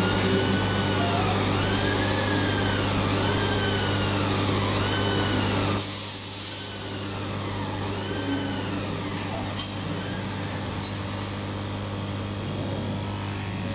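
AKJ1390H-2 laser cutting machine running: a steady hum with a string of rising-and-falling whines from its drive motors, about one a second, quieter from about six seconds in.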